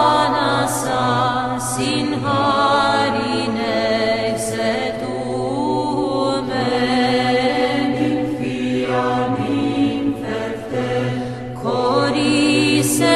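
Vocal chant as the soundtrack: voices singing a slow melody over a steady, held low drone note.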